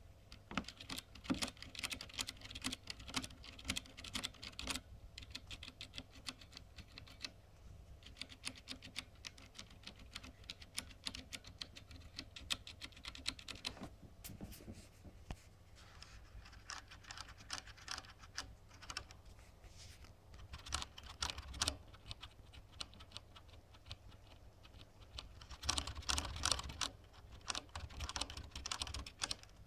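Bare mechanical keyboard switches of the MX Brown tactile type (Cherry and Kailh), keycaps removed, clattering under fast typing in several bursts with short pauses between them.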